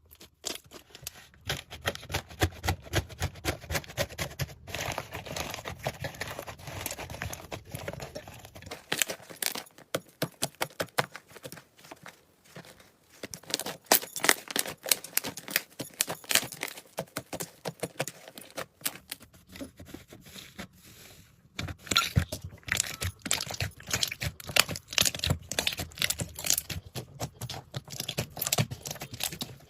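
Slime being squeezed and pressed by hand, giving dense crackling and popping clicks; the texture of the sound changes twice along the way.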